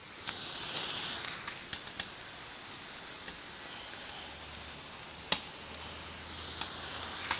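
Diced onion and bell peppers sizzling in hot olive oil in a kazan. The hiss is strongest at the start and swells again near the end, with a few sharp taps.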